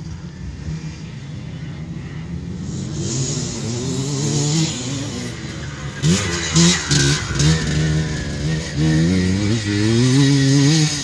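Off-road motorcycle engine approaching and passing close, getting louder and revving up and down repeatedly through a corner as the throttle is opened and closed. The sound is loudest in the second half and cuts off suddenly at the end.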